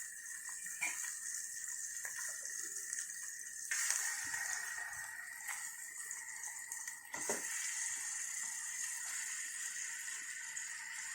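Raw chicken sizzling in hot oil and ginger-garlic paste in a pan, as a steady hiss. It grows louder after knocks about four and seven seconds in, as more chicken goes into the pan.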